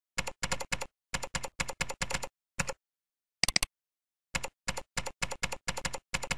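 Typing on a computer keyboard: quick runs of keystrokes separated by short pauses, with one louder keystroke about three and a half seconds in.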